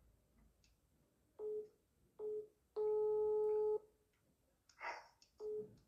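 Telephone call tones through a phone's speaker: one steady pitch sounding in short beeps and one longer beep of about a second, as an outgoing call rings out.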